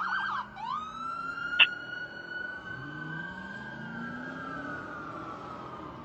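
Fire engine siren: a fast yelp cuts off just as it begins, gives one quick upward sweep, then winds down in one long, slowly falling wail. A short, sharp loud blip about a second and a half in, with the truck's engine faintly underneath.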